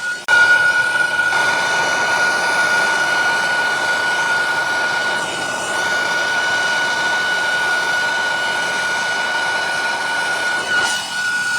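Soldering torch flame burning with a steady hiss and a high, steady whistle, as copper joints are heated.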